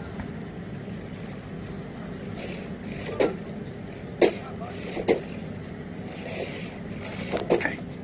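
A car engine running steadily as a low hum. Five short sharp sounds rise over it, the loudest about four seconds in and two close together near the end.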